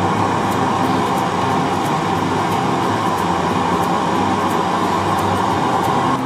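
Gas camping stove burner running at full flame under a wok: a steady, even rushing hiss.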